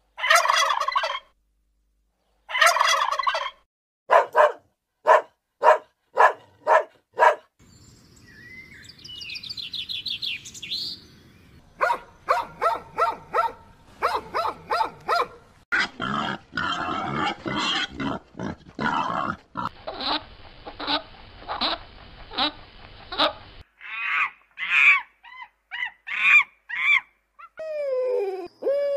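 A domestic turkey gobbling twice, then a quick string of short calls, followed by a long run of other animal calls and cries.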